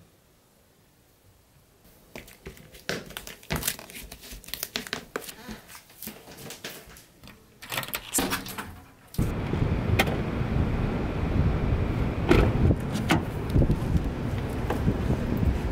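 A run of small clicks and rustles from hands at work, including a metal doorknob being turned. Then a sudden cut to wind buffeting the microphone, with a few sharp clicks and knocks as a car door handle is worked.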